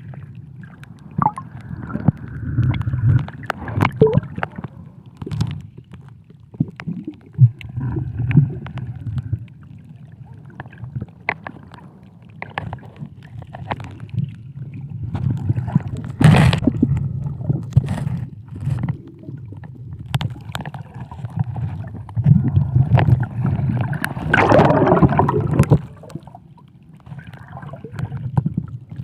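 Underwater sound picked up through a camera housing: a steady low water rumble with scattered clicks, broken by louder gurgling bursts of bubbles, one brief about 16 seconds in and a longer one from about 24 to 26 seconds.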